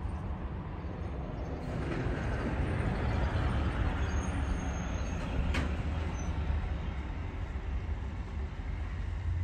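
Waterfront ambience: a steady low rumble and a wash of distant traffic noise that swells about two seconds in and eases off after about six seconds, with a single sharp click a little past halfway.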